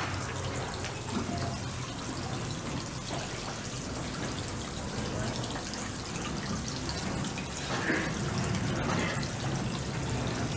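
Small bubbler fountain in an ornamental pond, splashing and trickling steadily, with a steady low rumble underneath.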